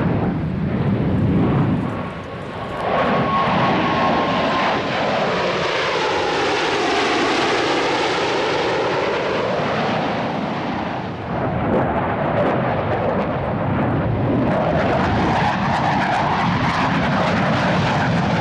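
Blue Angels F/A-18 Hornet jets making low passes: loud, steady jet engine noise with a whine that falls in pitch as the first jets go by, followed by a second pass.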